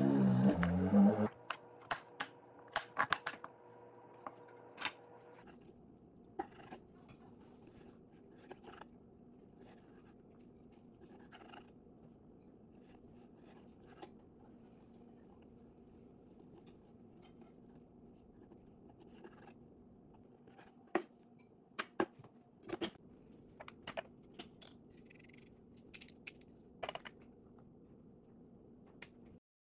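Kitchen knife cutting on a wooden cutting board: scattered sharp taps and clicks of the blade chopping broccoli and then slicing raw beef, over a steady low hum. A louder pitched sound cuts off about a second in.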